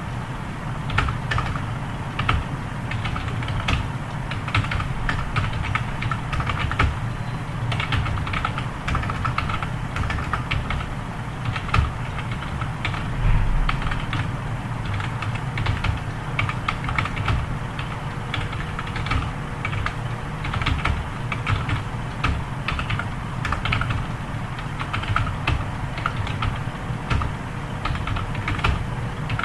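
Computer keyboard keys clicking in fast, uneven runs of typing, over a steady low hum.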